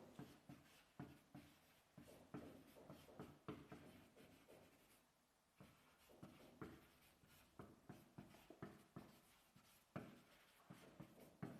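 Faint writing sounds: short, irregular scratching strokes, with a brief pause about five seconds in.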